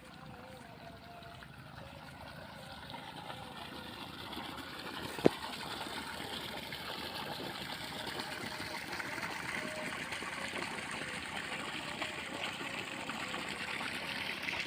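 Irrigation water running into a rice paddy without a pump, a steady rush that slowly grows louder. A single sharp click comes about five seconds in.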